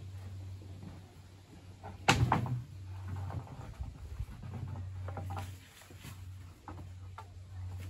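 Lumber knocking and clattering as a long wooden board is lifted off a stack and handled. There is one loud wooden knock about two seconds in, then lighter knocks, all over a steady low hum.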